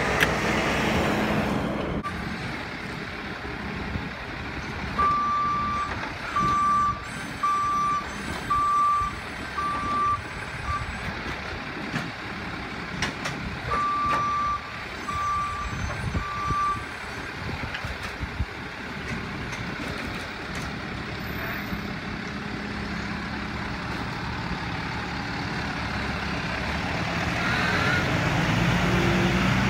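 Backup alarm on a mini roll-off dumpster truck beeping at one steady pitch, about once a second, in two runs with a pause between, over the truck's engine running. A heavier garbage truck engine is heard briefly at the start, and the engine noise grows louder near the end as the truck comes closer.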